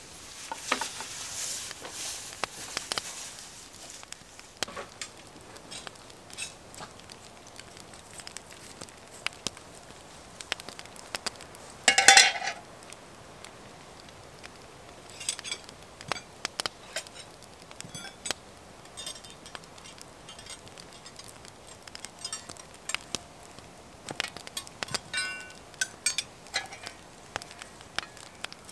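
Campfire crackling, with scattered clicks and clinks of cooking gear being handled. A brief hiss comes in the first few seconds, and one short, loud clatter about twelve seconds in.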